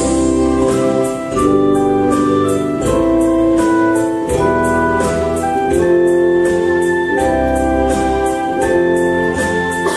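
Smartphones running the PocketPiano app, played together as a networked band. Sustained keyboard and organ-like chords and a melody run over a bass line, with a steady electronic drum beat.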